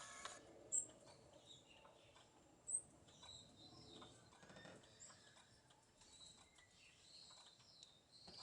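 Birds chirping faintly, with two sharp high chirps, one about a second in and one near three seconds.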